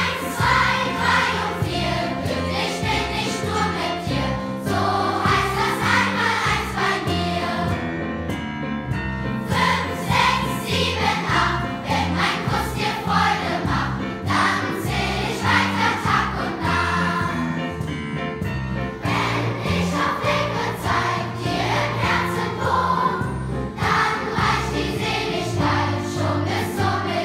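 Large children's choir singing together over an instrumental accompaniment with a steady moving bass line.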